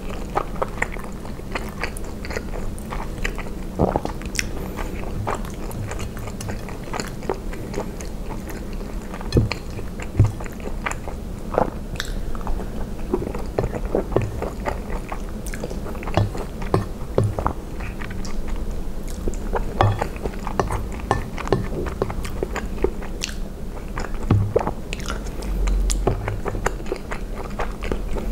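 Close-miked chewing and wet mouth sounds of eating ravioli in tomato sauce, with irregular small clicks and smacks. A wooden fork scrapes sauce across a plate.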